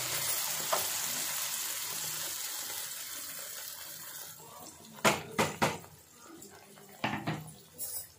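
Blended onion-tomato paste sizzling as it is poured into hot butter and oil, the hiss fading over the first few seconds as the paste settles. Then a few sharp metal clanks from the steel mixer jar, three about five seconds in and two more about seven seconds in.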